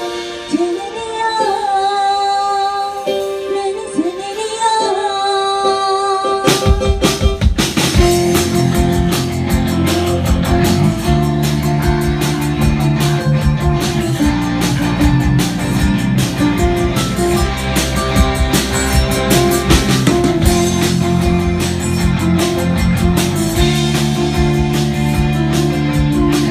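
Live band playing a song: a sung melody over light accompaniment, then about six seconds in the drums and bass come in together and the full band plays on with a steady beat.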